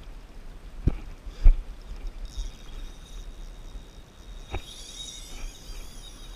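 Spinning reel's drag buzzing as a big fish strips line off it, starting a little over two seconds in and growing stronger later on. A few sharp knocks come before it; the loudest is about a second and a half in.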